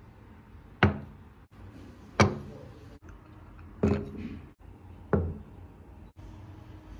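Ceramic plates and bowls set down one after another on a wooden tabletop: four sharp knocks, each with a short ring, roughly a second and a half apart.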